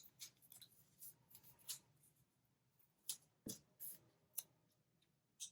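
Faint handling noises of washi tape rolls and paper: scattered light clicks and rustles, a few sharper taps around the middle.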